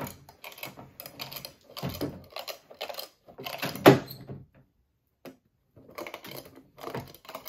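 Clicking and clacking of a Ruff Land kennel's metal grate door as it is unlatched and swung open from the other side, with the loudest clack about four seconds in.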